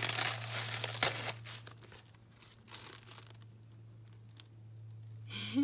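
Tissue paper crinkling and tearing as a parcel wrapping is pulled open by hand, loudest in the first second or so, then fading to faint rustles. A steady low hum runs underneath.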